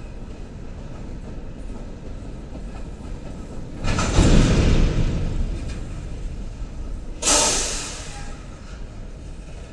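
Norfolk Southern freight train of open hopper cars rolling past with a steady rumble. There are two louder bursts of clatter, about four seconds in and about seven seconds in, each lasting about a second.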